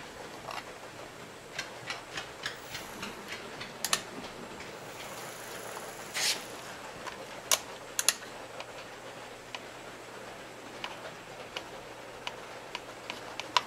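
Scattered light clicks and taps of small parts being handled: alligator clips and a plastic model-locomotive chassis moved about on a test track, with a short scrape about six seconds in.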